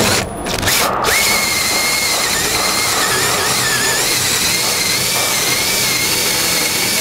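Cordless drill spinning a hole saw and its pilot bit into an interior door to bore the lockset hole. After a short start-up it runs steadily from about a second in, a wavering whine over the cutting noise.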